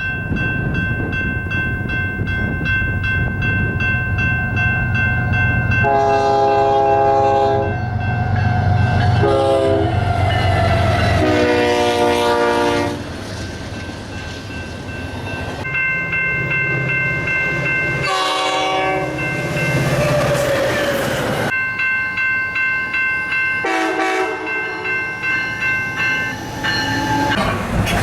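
Locomotive air horns sounding a series of chord-like blasts as trains pass, one blast sliding down in pitch as the train goes by. Under the blasts are the rumble and clatter of the train on the rails and a steady high ringing.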